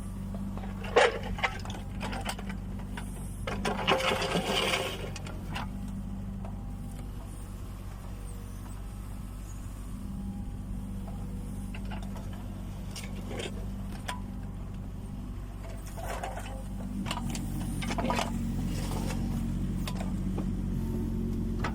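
Kubota U20 mini excavator's diesel engine running steadily as it digs, with sharp clanks about a second in, a short scraping burst a few seconds later, and scattered knocks; the engine grows a little louder about three-quarters through.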